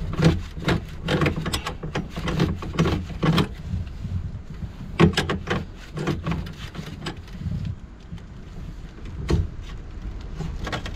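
Hand tools clicking and knocking against the copper pipe fittings of an unvented hot-water cylinder, in quick irregular clicks for the first few seconds and then a few scattered knocks, over a low steady hum.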